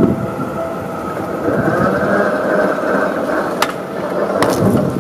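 Seibu 30000-series electric train approaching and passing close by, its traction motors giving a steady whine. Two sharp clacks of wheels over rail joints come near the end.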